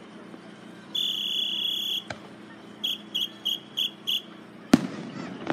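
A high whistle blown in one long blast, then five short blasts in quick succession. Near the end a single aerial firework shell bursts with a sharp bang.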